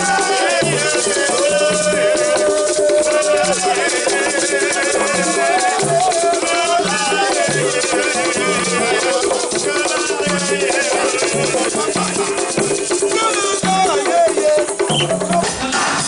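Music with shakers rattling continuously over a pulsing bass line and a wavering, vibrato-laden melody.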